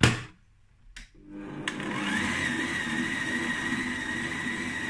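A knock, then about a second in a Kenwood Chef stand mixer's 1400 W motor starts on speed 1, its lowest setting, with its whine rising briefly to a steady pitch. The balloon whisk is beating eggs and sugar at low speed.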